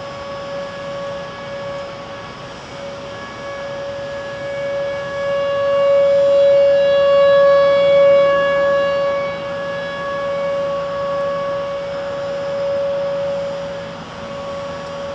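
Outdoor civil-defense warning siren sounding a steady, unwavering tone, sounding for a tornado. It swells louder through the middle and then fades back.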